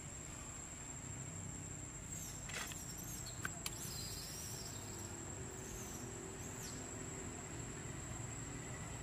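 Outdoor ambience with a steady, high, thin insect drone. A few brief high chirps come between about two and seven seconds in, and there are two small sharp clicks near the middle.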